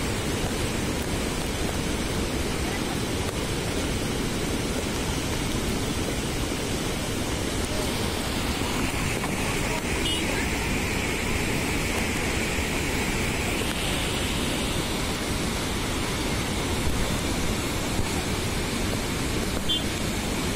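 Floodwater rushing and churning over a dam's overflow weir: a steady, loud wash of turbulent water, its hiss growing brighter for a few seconds midway.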